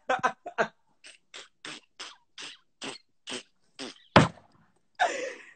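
A person laughing in short puffs of breath, about two a second, a sharp knock a little past the middle, then one more laughing burst near the end.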